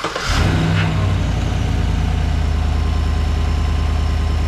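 A 2016 Chevy Silverado's engine catching right after cranking, briefly running faster for about a second, then settling into a steady idle.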